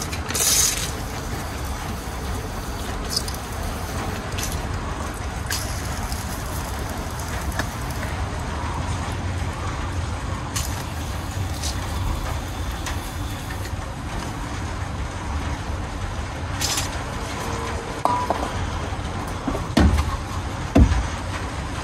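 Metal tool clinks and taps on a rusted brake caliper as it is unbolted, with two heavier knocks near the end, over a steady low rumble.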